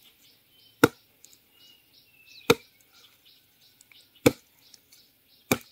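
A blade splitting a grilled bamboo tube lengthwise: four sharp chopping blows, about one and a half seconds apart. Insects chirp in a steady pulsing chorus behind.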